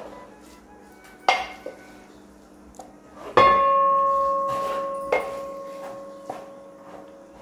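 Metal ladle scraping and knocking on cooking pots as cooked rice is scooped out of a pressure cooker into a brass uruli of boiling milk. A sharp click about a second in, then one hard knock about three seconds in that leaves the pot ringing with a clear tone that fades over about three seconds, followed by a couple of lighter knocks.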